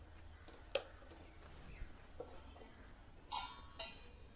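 A steel spatula knocking against a kadai while tomato purée is stirred: a sharp click about a second in, a few faint taps, then a ringing metal clink a little past three seconds and a shorter one just after.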